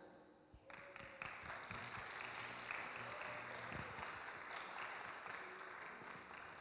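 Church congregation applauding, starting about a second in and tapering off near the end.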